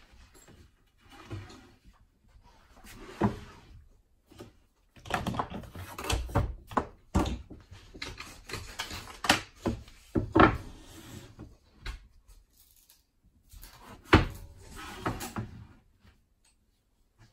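Wooden boards being handled on a wooden workbench: irregular knocks, slides and scrapes of wood on wood as the mitered sides of a box are stood on edge and butted together, with a couple of sharper knocks.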